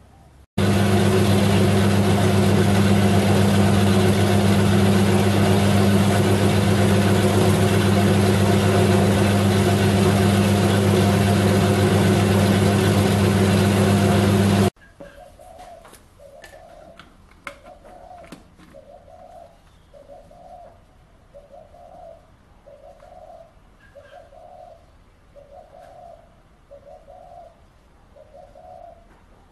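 Small horizontal metal-cutting bandsaw running steadily with a strong motor hum while cutting a metal bar, stopping abruptly about halfway through. After it, a dove coos over and over, about once a second, with a few faint clicks.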